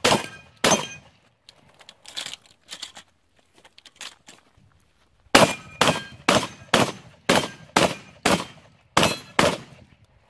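9mm pistol firing at steel targets: two shots near the start, a lull of about four seconds with a few faint knocks, then a fast string of about eleven shots, roughly three a second.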